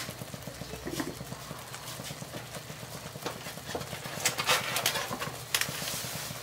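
Thick toor dal simmering in a pot on a gas stove, its bubbles bursting in irregular pops that come more often in the second half, over a low steady hum.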